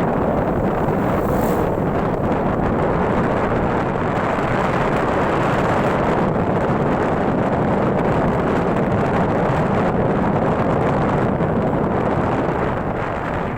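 Wind rushing over the microphone of a moving motorcycle, a steady dense roar with road and engine noise blended underneath, easing slightly just before the end.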